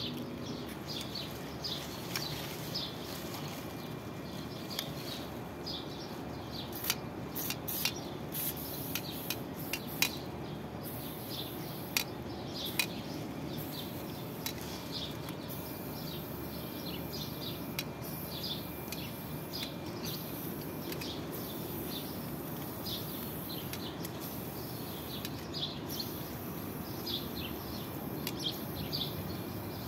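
WD-40 aerosol can spraying, a hiss that comes first in short bursts and then in longer spells in the second half, with scattered handling clicks. Birds chirp throughout.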